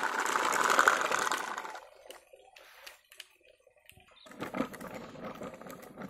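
Plastic toy tractor rattling as it is rolled over the ground: a loud burst of fast clattering for about two seconds, then after a pause a softer scraping rattle.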